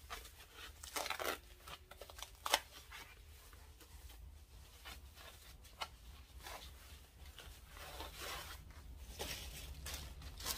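Paper packaging being torn open and rustled by hand, with a few sharp rips about one, two and a half and six seconds in, the loudest near two and a half seconds, then busier rustling near the end.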